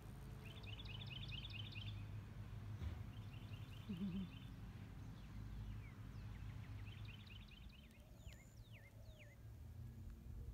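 Songbird singing three short runs of rapid trilled notes a few seconds apart, then a few downward-sliding whistles near the end, over a steady low background rumble.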